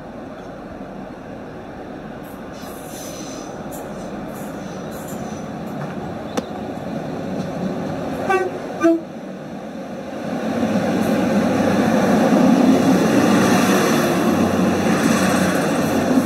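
Model railway diesel unit running along the layout, its running noise slowly growing. A little past halfway its sound decoder gives two short horn toots, the second lower than the first. The running sound then grows louder as the unit passes close by.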